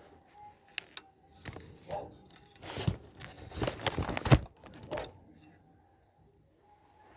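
Irregular rustling and crinkling with sharp clicks, like objects being handled, loudest about three to four and a half seconds in.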